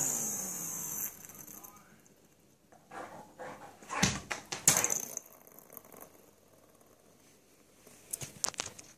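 Small toy spinning top whirring and scraping on a hard floor, loudest in the first second with a falling pitch. Later the basset hound's claws tick and knock on the floor as she lunges at it, with a heavy thump about four seconds in and a run of claw ticks near the end as she walks.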